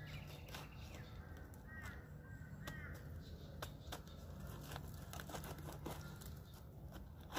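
Rotten, termite-eaten log being levered apart with a tool wedged into its top: scattered faint cracks and crumbling as the soft wood gives. A bird calls a few times about two seconds in.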